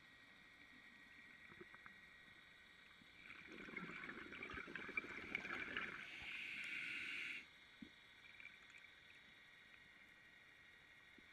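Scuba diver breathing through a regulator underwater. About three seconds in comes a bubbling, crackling exhalation lasting nearly three seconds, then a shorter steady hiss of inhalation that cuts off sharply.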